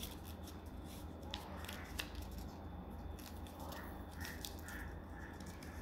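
A sheet of white paper folded and creased by hand, rustling and crinkling in short scattered crackles, over a steady low hum.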